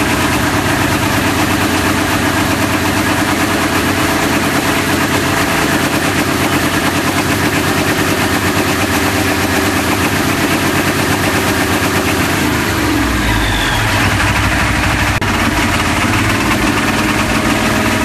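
Mechanical P-pump 7.3L Powerstroke V8 turbo-diesel running on an engine run stand, loud and steady, its note shifting briefly about two-thirds of the way through.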